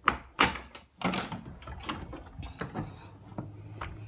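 Sharp clicks and knocks of a door's latch and handle as the door is unlatched and pulled open, with smaller rattles after. A steady low hum comes in near the end.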